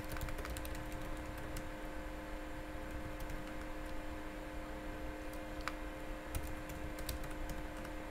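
Computer keyboard keys clicking in scattered keystrokes, over a steady background hum.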